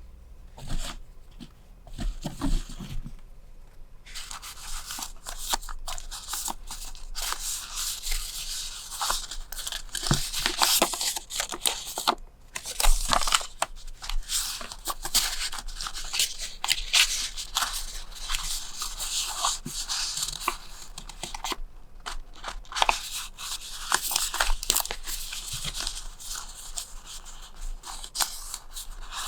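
Packaging being torn open and handled by hand: a dense, crackly rustle of tearing and crinkling wrapping with many small clicks. It gets busier after about four seconds.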